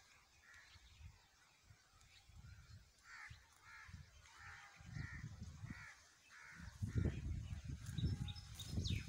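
A crow cawing in a run of short, harsh calls, about two a second, through the middle of the stretch. Low rumbling gusts of wind on the microphone grow loudest near the end.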